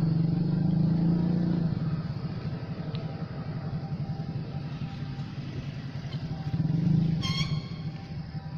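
Motor vehicle engines running and passing close by, swelling twice. About seven seconds in comes a short, high-pitched tone.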